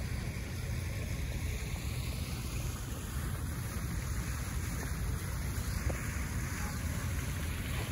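Wind rumbling on a handheld phone's microphone over the steady wash of water falling in a tiered fountain.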